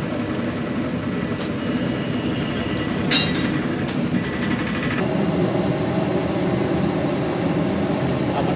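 Steady rushing, rumbling background noise with a few sharp clicks and knocks in the first half. The rush grows a little louder about five seconds in.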